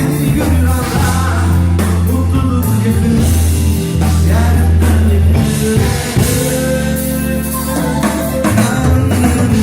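Live band playing amplified music with a singer over held bass notes and drums, as at a sound check.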